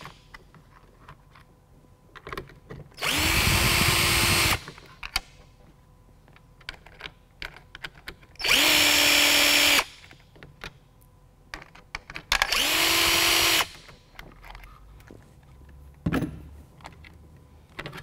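Cordless drill driving out Phillips screws from a plastic console armrest lid, in three separate runs of a second or so each with a steady motor whine. Small clicks of handling the screws and the plastic parts come between the runs.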